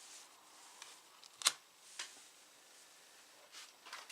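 Small hand-held gear being handled: one sharp click about one and a half seconds in, a fainter click half a second later, and a few light ticks near the end.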